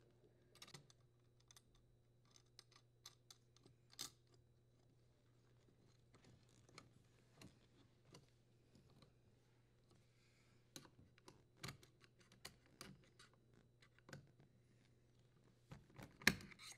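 Faint, scattered small clicks and taps of hands working a wire strain relief nut and the power wires at a dishwasher's electrical junction box, over a low steady hum. The clicks are loudest about four seconds in and near the end.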